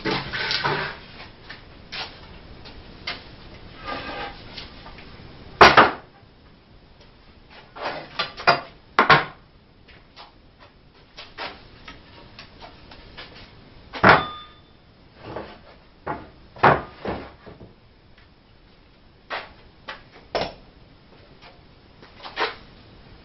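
Wooden 2x4 boards being handled, knocking and clattering as they are set down and picked up: a scatter of separate knocks, the loudest about six seconds in and another around the middle.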